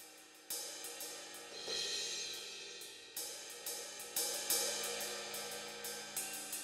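Background music: cymbal and hi-hat strikes over a held pad, getting louder about half a second in.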